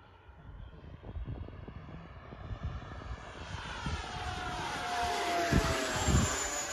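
FMS BAE Hawk 80 mm electric ducted-fan model jet flying past overhead, its fan whine growing louder and sliding slightly down in pitch as it passes, loudest near the end. Two low thumps near the end.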